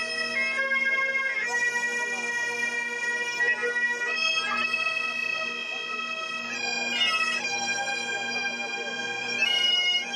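Several Great Highland bagpipes playing a tune together over their steady drones, the chanter melody moving between held notes with quick grace-note flicks.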